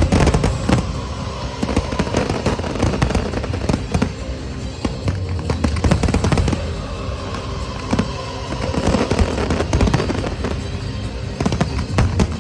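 Aerial fireworks bursting in quick, irregular succession, sharp cracks and bangs over one another, with music playing underneath.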